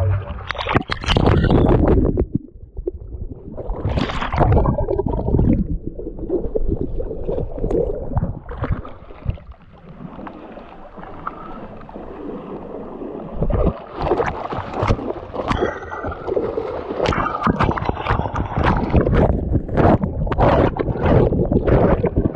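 River water sloshing and gurgling close to the microphone in irregular surges, with a quieter stretch midway and then a run of quick, choppy splashes over the last several seconds.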